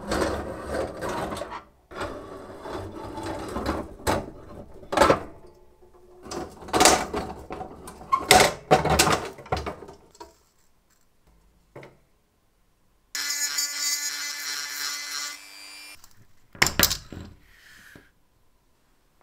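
Metal parts of an antique mechanical horse racing game being handled and taken apart: clattering and clinking of cast-metal fence railings and fittings, with several sharp knocks. Near the middle there is a steady buzzing tone for about two seconds, and then a last sharp knock.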